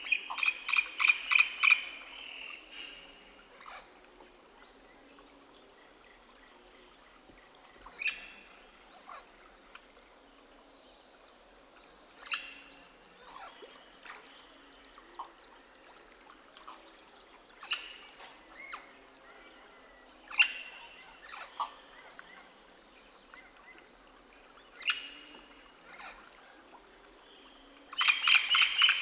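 Outdoor animal-call ambience: a rapid run of loud calls in the first two seconds, then scattered short bird-like chirps over a steady high hiss, and a loud burst of dense calling starting near the end.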